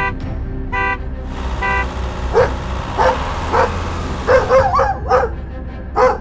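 Two short horn toots, then a dog barking repeatedly, roughly a bark every half second with a quick run of yaps near the middle, all over a steady low motor hum.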